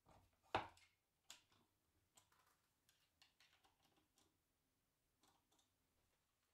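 Handling sounds of a plywood tailstock being fitted onto a homemade wood lathe's bed: one sharp knock about half a second in, a second smaller one just after, then a scatter of faint clicks and taps.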